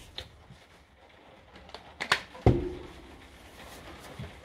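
Handling noise from a cordless impact wrench being worked on: a few light clicks, then two sharp clicks and a heavier knock about two seconds in as its plastic and metal housing parts are handled and fitted together.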